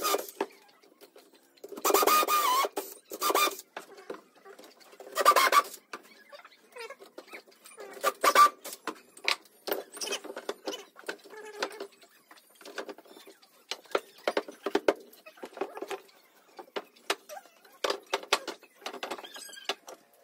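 Cordless drill boring dowel holes in pallet boards in two short runs a few seconds in, then a scattering of wooden knocks and clicks as the boards are handled and fitted.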